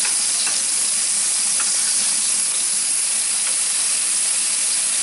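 Steady sizzling hiss from a Severin electric grill as dripped bacon fat burns on the hot surface below the grate, giving off smoke, with a few faint clicks.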